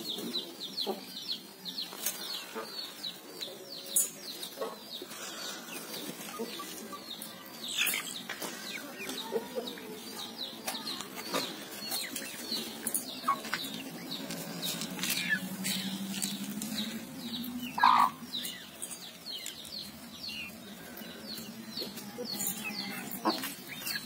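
Young Aseel chickens feeding from a steel bowl: beaks tap and click on the metal while they cluck and give short high chirps.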